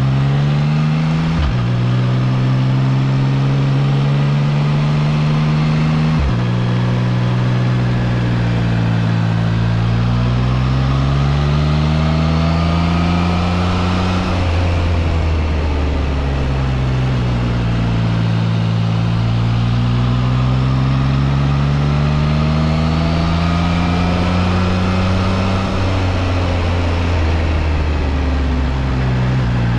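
Triumph Trident 660's three-cylinder engine pulling under acceleration, heard from the rider's seat. Two quick upshifts a few seconds apart drop the engine note sharply, then it climbs, eases off and falls away, and pulls up again near the end.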